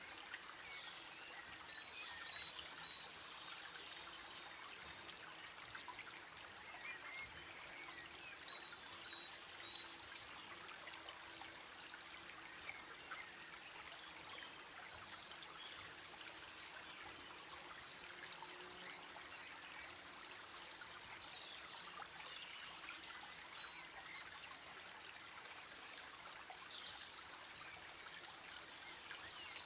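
Faint running water, like a stream, with birds chirping in short series of calls now and then.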